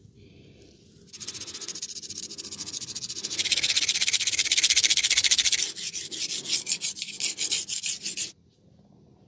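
Fast rasping rubbing strokes, many to the second, from a barber's vigorous massage rub. They start about a second in, grow louder in the middle and stop abruptly near the end.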